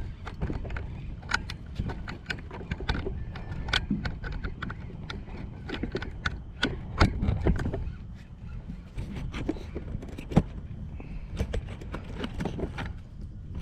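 Irregular knocks, clicks and scrapes of handling on a fishing boat, over a steady low rumble.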